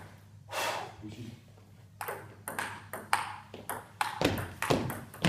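Table tennis rally: a ball clicking off paddles and the table in a quick back-and-forth. The hits are sparse at first, then come two or three a second from about two seconds in.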